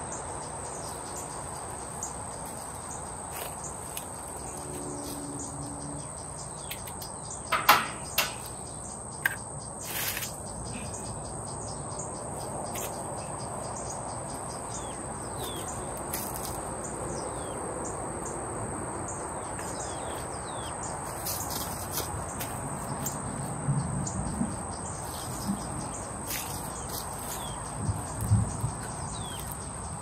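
A steady high-pitched insect drone with birds chirping now and then. A few sharp knocks about a third of the way in and some dull bumps near the end, as potted shrubs are shifted on gravel.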